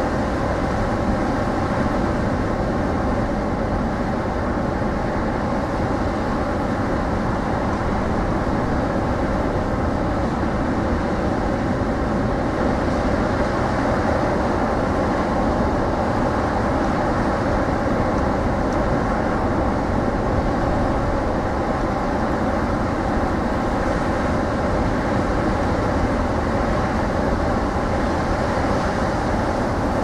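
Rough storm surf breaking along an ocean beach: a steady, unbroken wash of noise with a heavy low rumble.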